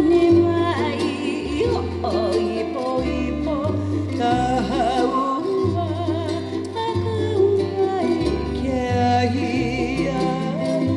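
A hula song: one singer's voice, wavering on held notes, over a plucked-string accompaniment with a steady bass line.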